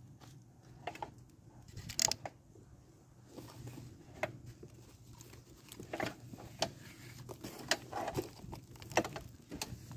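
Irregular soft rustles and light clicks of hands handling succulent seedlings and potting soil, with the sharpest click about two seconds in, over a faint steady low hum.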